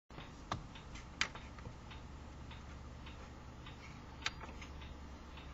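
Faint light ticking, a click about every third of a second, over a steady low hum, with three sharper clicks about half a second, a little over a second and about four seconds in.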